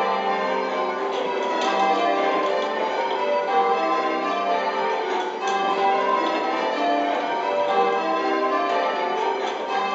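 Eight church bells rung full-circle in Spliced Surprise Major: a continuous, evenly spaced stream of bell strikes in a constantly changing order, each bell ringing on under the next, heard from the ringing chamber beneath the bells.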